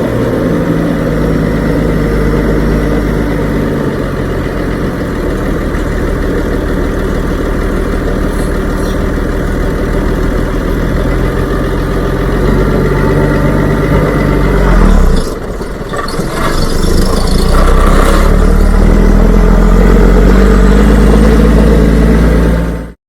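A large engine running steadily, with a brief dip in level about fifteen seconds in; the sound cuts off suddenly near the end.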